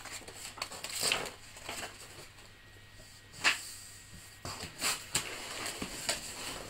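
Paper leaflets rustling and cardboard box flaps being handled, in scattered short rustles and knocks with one sharper tap about three and a half seconds in.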